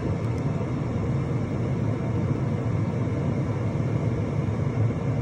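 Diesel air heater running steadily at its maximum setting, a steady low-pitched sound with no change.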